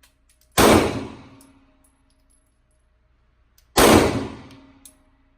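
Two 9mm pistol shots from a Glock 19 Gen 4, about three seconds apart. Each is a sharp crack with a long echoing tail.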